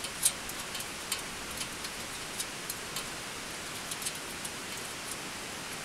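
Scattered small metallic clicks and taps, the sharpest about a third of a second in, as a metal pole is fitted and adjusted in a folding steel camp table. Under them runs a steady background hiss.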